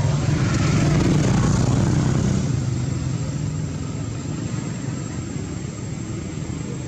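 A motor vehicle engine running with a steady low hum, loudest for the first couple of seconds and then fading.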